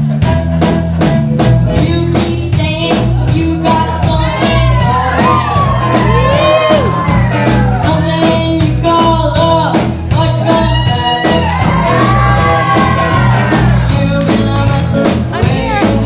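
Live band playing a rock song with electric guitar and a steady beat; a young girl's singing voice comes in a few seconds in and carries the melody over the band.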